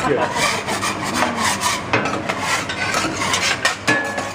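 Metal spatulas scraping across a steel teppanyaki griddle in rapid, repeated strokes.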